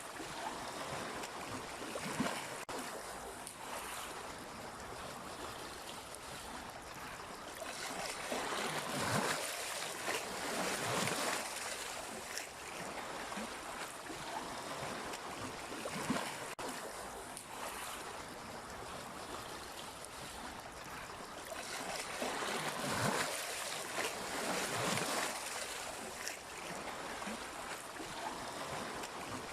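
Sea waves washing in as a steady rushing surf, swelling twice to a louder surge, once about a third of the way in and again about three quarters through. A few short sharp splashes stand out above the wash.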